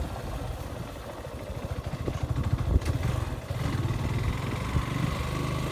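Motorcycle engine running at low speed on a rough dirt road, with a few sharp knocks from the bumpy surface, the loudest about three seconds in.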